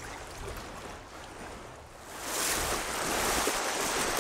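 Shallow sea water washing up onto a sand beach: a soft wash that swells into a loud, foamy rush about two seconds in.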